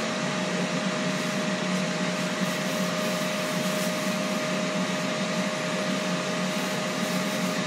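Ninja Foodi XL Grill running as an air fryer, its fan making a steady whir with a constant humming tone.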